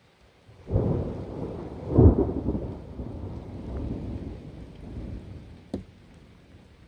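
Thunder from a lightning strike: a sudden loud crack about a second in, a louder clap a second later, then rumbling that slowly dies away. A short sharp click comes near the end.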